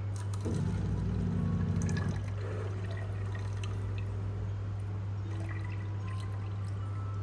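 Self-service drink dispenser filling a paper cup: its pump buzzes for about a second and a half as the drink pours, followed by a few drips, over a steady low hum.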